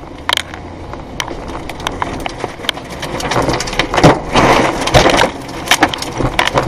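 Tornado wind and rain battering a car, heard from inside the cabin: a rushing noise that builds and is loudest about four to five seconds in, with debris and rain striking the windshield and body in many sharp hits.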